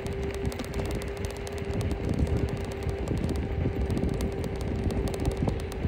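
Electric scooter riding along a paved road: a steady motor whine holds one pitch throughout, over a low rumble of wind on the microphone and tyres on the road.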